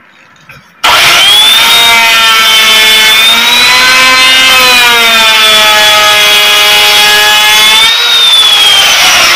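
Endico handheld wood router starting abruptly about a second in and running at a loud, high motor whine while cutting wood, its pitch wavering with the load. Near the end the whine briefly dips and rises again.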